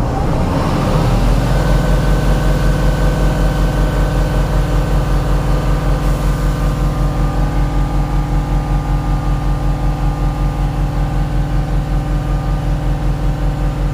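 Mahindra Blazo BS6 truck's turbo-diesel engine held at full revs on a stationary truck. It climbs over the first second or so, then runs steadily with an even pulse. At these revs its turbo makes only about 1.2 bar of boost where 1.4–1.5 is expected: the underboost behind its P0299 fault code.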